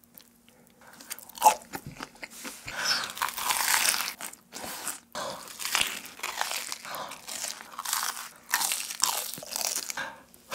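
Crunching bite into a crispy fried crepe cone filled with fried shrimp, a sharp snap about a second and a half in, followed by loud, crunchy chewing in uneven bursts.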